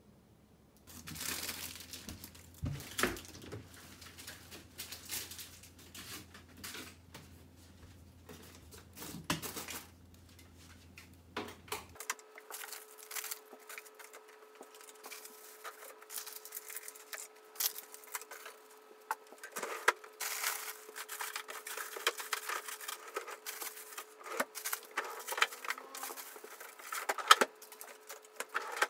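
Plastic grocery bags and food packaging crinkling and rustling as groceries are handled and put away, with light knocks of packages and containers.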